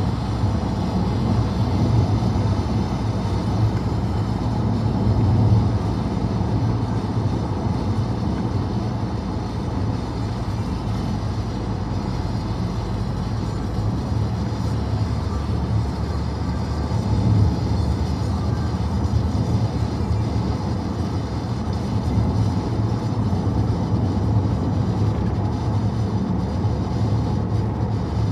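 Steady road and tyre noise of a car driving at highway speed, heard inside the cabin as an even low drone.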